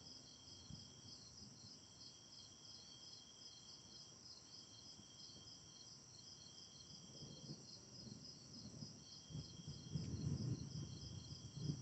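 Crickets and other night insects chirping: a fast, even pulsing chorus with a steady high trill that stops and restarts every second or two. Near the end a low rumble swells and fades.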